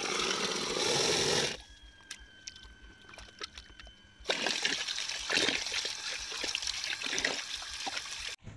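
Running water pouring into a plastic basin of raw fish pieces and splashing. It drops away after about a second and a half, then comes back about four seconds in with uneven splashes as a hand rinses the fish in the stream.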